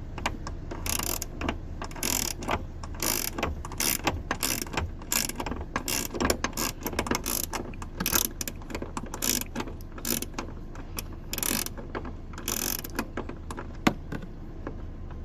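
Socket ratchet clicking in quick runs of strokes, with short pauses between runs, as the bolts holding the boot gas strut mounts are tightened.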